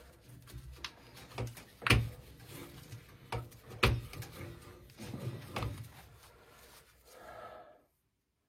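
Hand tools knocking and clicking on the metal of a boiler's gas valve and piping: a handful of sharp knocks, the loudest about two and four seconds in, with lighter clicks between.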